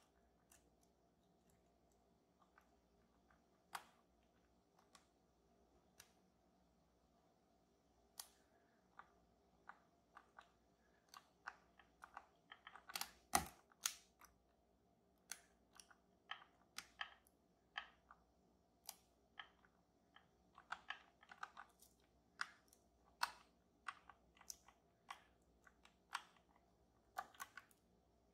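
Faint, irregular clicks and taps of a lock pick working the sliders of an EVVA Dual lock. The clicks are sparse at first, then come several a second from about eleven seconds in, with a louder cluster near the middle.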